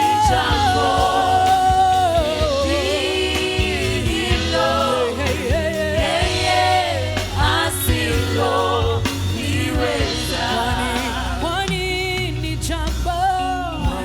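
Gospel worship music: a worship team singing a Swahili praise song over a band with drums, the melody in long held and sliding notes.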